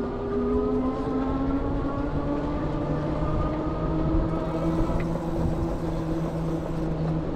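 Fat-tire e-bike rolling along pavement on heavy-duty VeeMoto E-Huntsman 20x4 tires: a steady droning hum in several tones that drifts slightly in pitch with speed, over a low rumble of wind and road noise.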